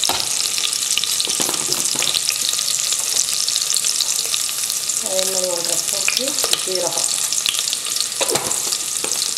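Spices frying in hot ghee in an aluminium pressure cooker: a steady crackling sizzle of ginger, green chilli and black peppercorns as a tempering is made.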